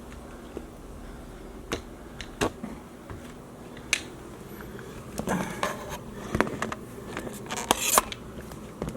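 Scattered knocks, clicks and scraping of things being handled, busiest about five to eight seconds in, over a steady low hum.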